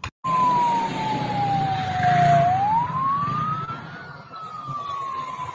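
Emergency vehicle siren wailing: one tone sliding slowly down, then up, then down again, over a low traffic rumble.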